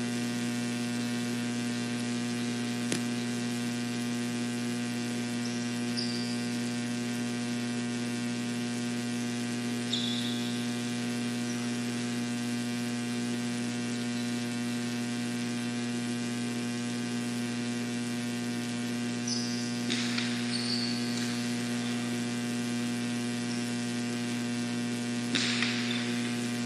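Steady electrical mains hum with a buzzing series of overtones. A few faint short high squeaks and light clicks come through now and then.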